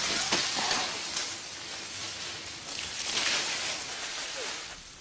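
Palm fronds rustling in the wind as an even hiss, swelling near the start and again about three seconds in, with a few faint clicks.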